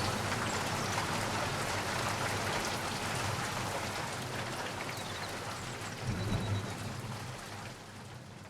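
Steady rain falling, with many separate drops pattering close by and a brief low rumble about six seconds in; the sound fades down toward the end.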